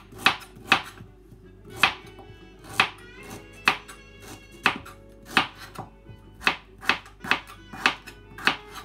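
Kitchen knife chopping parsnip on a plastic cutting board: about fourteen sharp knocks, irregularly spaced, coming faster in the second half.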